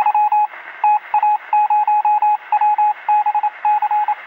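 Electronic beep sound effect: rapid beeps at one steady pitch in irregular groups of short pulses, with a thin, narrow radio-like tone.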